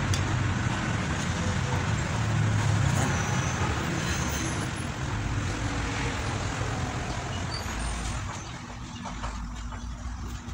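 Steady low rumble of motor vehicles, easing off about eight seconds in.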